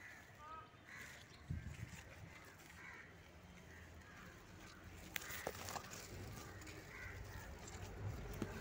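Birds calling faintly and repeatedly in the open air, with leaves rustling and rubbing against the phone as it is pushed through bitter gourd vines; a soft knock about a second and a half in and a sharp click about five seconds in.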